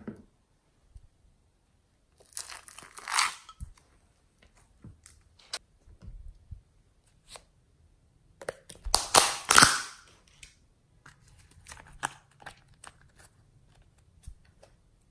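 A small plastic tub of yellow clay is handled and opened: the lid and seal make crinkly tearing sounds among scattered light plastic clicks. There are two longer crinkling stretches, the louder about nine seconds in.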